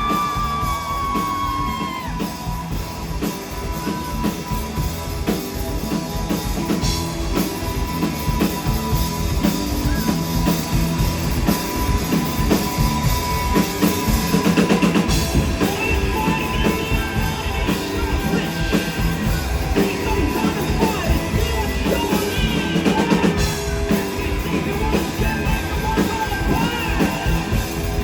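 Indie rock band playing live in an instrumental passage: drum kit and electric guitar, with a long held high note sustained over the beat.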